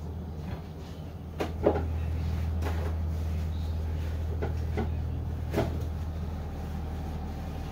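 A steady low hum that grows louder about a second and a half in, with several sharp knocks and clicks over it, the loudest near the start and another about two-thirds of the way through.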